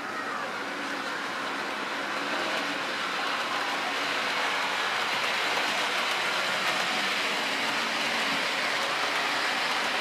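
An OO gauge model train running past on the layout's track. Its steady rushing rolling noise grows louder over the first few seconds, then holds.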